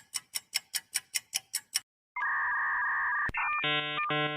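Countdown-timer sound effect: fast, even ticking, about five ticks a second, that stops about two seconds in. It is followed by a steady two-note electronic tone for about a second and then a brief pulsed chord of tones near the end, like a time's-up signal.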